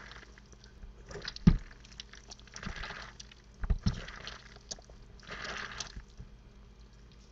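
Raw ground meat mixture (pork, beef, egg, breadcrumbs and onion) squelching as it is squeezed and kneaded by hand in a stainless steel bowl. The squishing comes in three waves, with a few dull knocks, the sharpest about a second and a half in.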